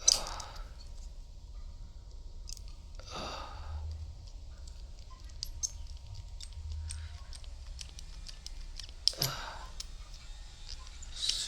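Hand crimping tool squeezed to crimp an RJ45 connector onto a Cat 6 cable: a sharp click right at the start and another about nine seconds in, with rustling and small ticks of handling in between.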